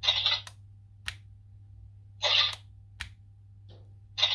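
Electronic sound effects from a toy Faiz Shot camera accessory playing on a loop from its small speaker: a short burst of noise followed by a sharp click, the pair repeating about every two seconds.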